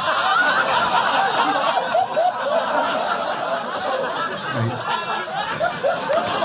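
Audience laughter: many people laughing at once, steady throughout.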